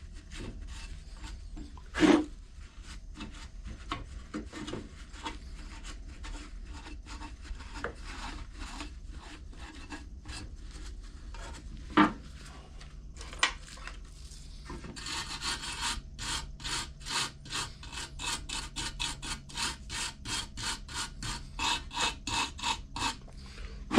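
Hand rubbing and scraping strokes, cleaning a part during a lawn mower carburetor replacement. The strokes settle into a steady back-and-forth of about three to four a second in the second half, with a few sharp knocks along the way.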